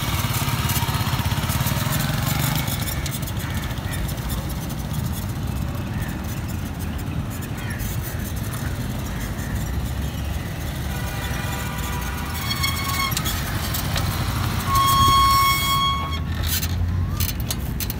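Restored 2008 Unique motorcycle's engine running as it is ridden. Near the end its horn sounds twice: a short faint beep, then a louder one of about a second.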